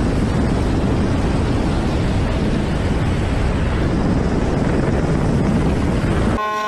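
Loud, steady rush of wind and rotor noise aboard a helicopter flying with its door open. Near the end it cuts suddenly to steady horn tones.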